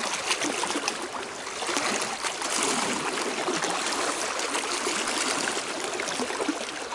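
Small waves lapping and splashing against the shore rocks, a steady trickling wash of water.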